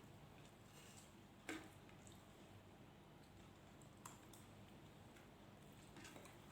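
Near silence with faint eating noises: a few soft clicks and squishes of food being eaten, the clearest about a second and a half in.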